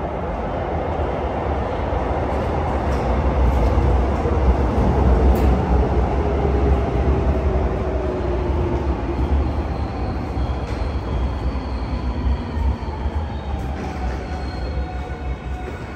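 Korail Class 321000 electric multiple unit running into an underground station. Its rumble and motor whine swell over the first few seconds, then the whine falls in pitch as the train slows, with higher tones joining from about ten seconds in.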